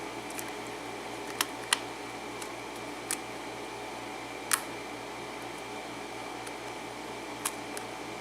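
Small sharp clicks, about six at irregular intervals, of a steel lock pick working the pins of a pin-tumbler lock with a Schlage keyway during single-pin picking. A steady hum runs underneath.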